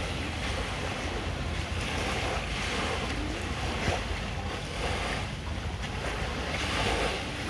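Small sea waves washing at the shoreline, swelling and fading every couple of seconds, with wind rumbling on the microphone.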